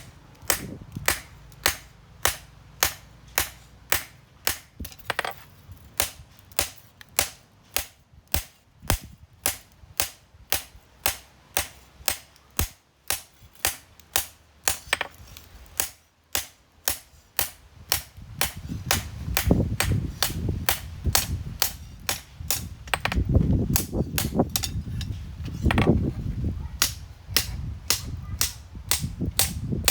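Blacksmith's hammer striking steel on an anvil in a steady rhythm, about two to three blows a second, forging a knife blade. A low rumble joins in underneath about halfway through.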